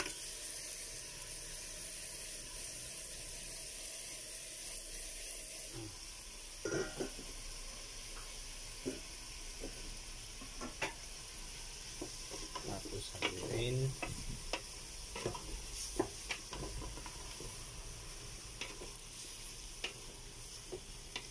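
Pork and pork intestines sizzling in a metal pot with a steady hiss. From about six seconds in, a wooden spatula scrapes and knocks against the pot as the meat is stirred, busiest around the middle.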